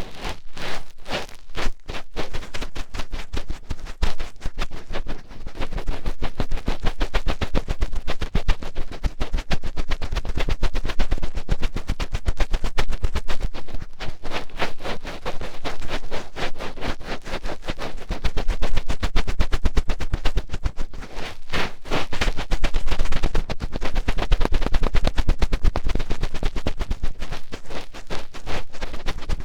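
Fingertips digging and rubbing deep in a microphone's ear for finger ear-cleaning ASMR: a continuous stream of rapid, close-up scratching and crackling with dull low thumps.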